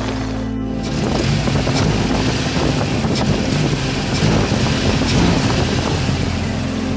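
1997 Toyota Tacoma engine running rough and uneven, getting louder about a second in, with a misfire that sets code P0300 (random or multiple-cylinder misfire).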